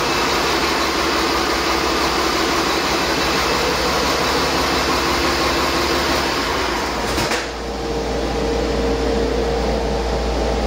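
1999 Cummins ISC turbocharged inline-six diesel running steadily on a test stand. About seven seconds in the sound changes: the hiss fades and a steadier, lower hum with a clear tone remains.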